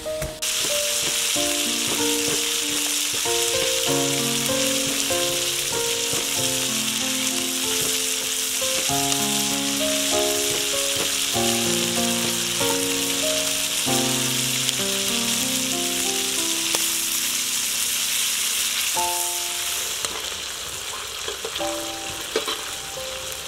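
Pieces of eel deep-frying in hot oil in a wok, a loud, steady sizzle that cuts in suddenly at the start and eases a little near the end. Background music with a plucked melody plays underneath.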